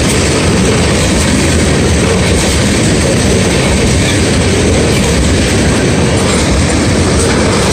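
A freight train of loaded ethanol tank cars rolling past close by: the steel wheels running on the rail make a loud, steady rumble.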